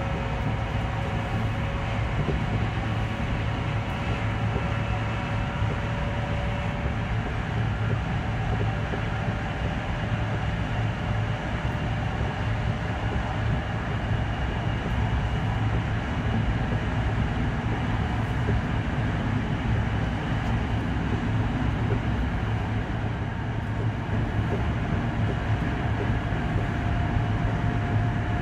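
Chinese high-speed train heard from inside the passenger car while running along the line: a steady rumble and hum, with faint whining tones that drift slowly upward in pitch.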